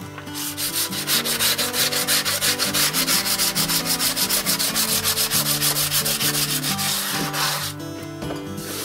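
A hand-held abrasive block rubbed briskly back and forth over the flat face of a York stone (sandstone) disc, giving a fast, even rhythm of scraping strokes that stops near the end.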